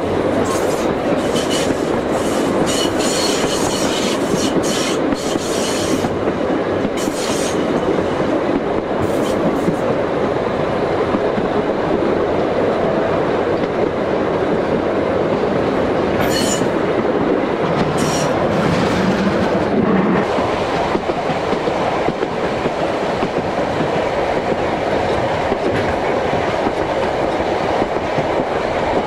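A narrow-gauge passenger carriage rolling steadily along the track, heard from an open carriage window, its wheels clicking over the rail joints. The clicks come thickly in the first several seconds and a few more come later.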